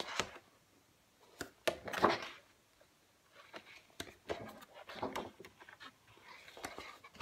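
Pages of embossed, glittered scrapbook paper being turned one after another in a paper pad: a series of brief paper swishes and rustles, about five of them, with short pauses between.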